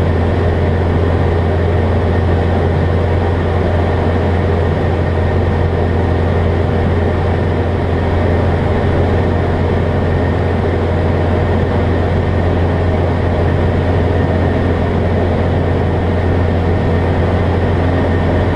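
Steady low drone of a Jabiru light aircraft's air-cooled piston engine and propeller, heard from inside the cockpit in flight.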